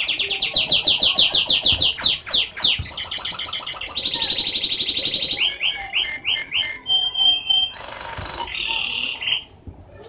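Domestic canary singing: a run of fast high trills and sweeping notes in changing phrases, including a few downward swoops and short held whistles, that stops shortly before the end.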